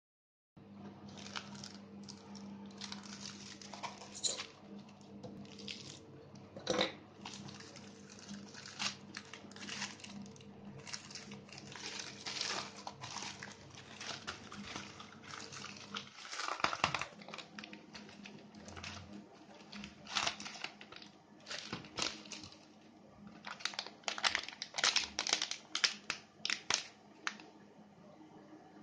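A plastic mailing bag crinkling and rustling in the hands, in irregular crackles, as the parcel is handled and opened, then the plastic bag inside crinkling.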